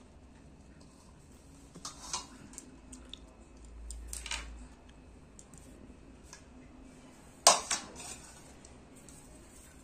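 Utensils knocking against a metal cooking pot: a few light clinks and a short scrape, then one sharp clank about seven and a half seconds in, followed quickly by a second.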